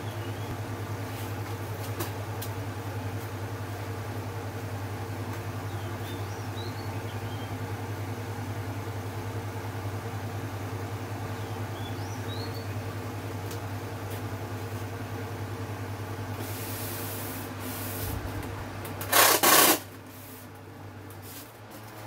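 Small electric fan motor running steadily on top of a homemade foam-box air cooler, a constant hum. A short loud rustling burst comes near the end, after which the sound is quieter.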